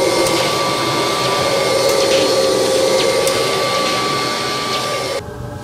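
Vacuum cleaner running steadily with a whine, cut off suddenly about five seconds in.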